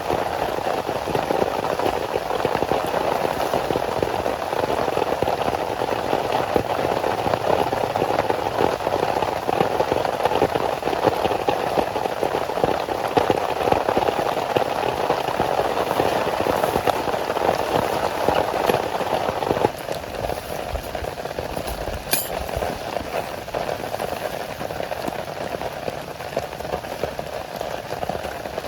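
Heavy rain falling steadily as a dense patter of close drops. About two-thirds of the way through it abruptly becomes softer, and shortly after there is a single sharp click.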